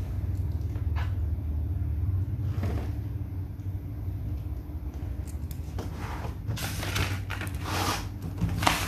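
A steady low rumble, then from about six seconds in the rustling and flapping of spiral-notebook paper pages being handled and turned to a fresh page, with a sharp knock near the end.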